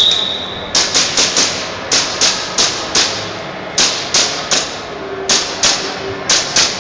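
Airsoft pistol firing about sixteen sharp shots in quick strings of two to four.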